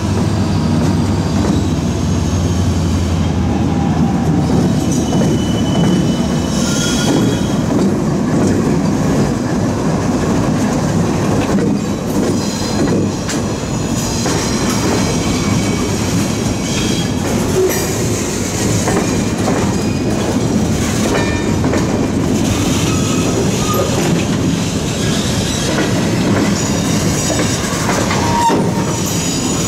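Norfolk Southern freight train passing close by: the diesel locomotives' low engine sound for the first few seconds, then the freight cars' wheels clattering along the rails with thin high wheel squeals now and then.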